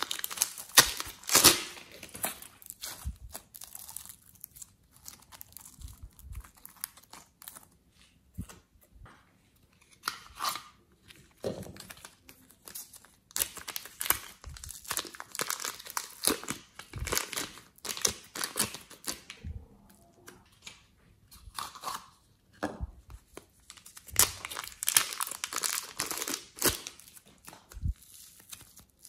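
Thin plastic piping bags crinkling as they are peeled off lumps of soft clay, and the soft clay tearing as it is pulled apart, in uneven bursts of crackly rustling and tearing.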